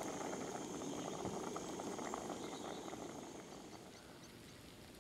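Pot of vegetables simmering on a camping stove: a faint, steady bubbling with small crackles, fading about three and a half seconds in.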